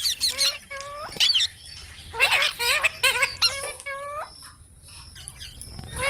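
Pet parrots chirping and squawking: a quick run of short calls, each bending up or down in pitch, through the first four seconds, then fewer and fainter calls.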